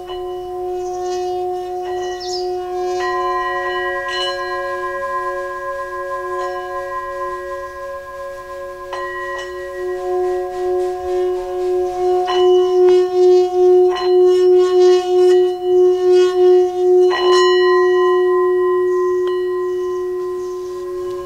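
Metal singing bowls struck with a mallet in a sound massage, one resting on the person's body: several long overlapping ringing tones renewed by a fresh strike every few seconds. The deepest tone pulses in the middle.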